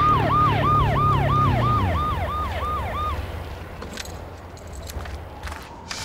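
Police motorcycle siren in a fast yelp, about three wails a second, each holding high and then falling, over the low rumble of engines slowing down. The siren cuts off about three seconds in, leaving the engines idling, with a few clicks near the end.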